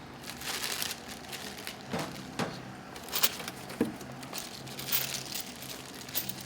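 Handling noise from a new Snap-on tool box being unpacked: irregular crinkling and rustling of packaging with a few light knocks and clicks.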